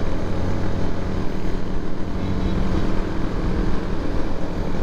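Motorcycle engine running steadily at cruising speed, heard from on the bike: an even low drone over wind rush and tyre noise on a wet road.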